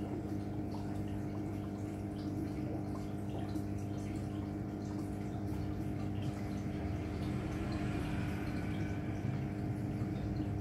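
Aquarium filter or air-pump motor humming steadily, with water trickling and faint dripping ticks over the hum.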